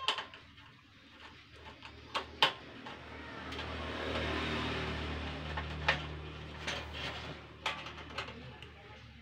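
Sharp metal clicks and knocks from a screwdriver and loose metal parts as screws are driven into the leg brackets of a gas-stove frame, with a rumbling noise swelling and fading in the middle.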